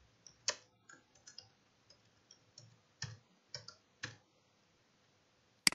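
Computer keyboard typing: scattered, irregular key clicks, then one sharp, louder click near the end.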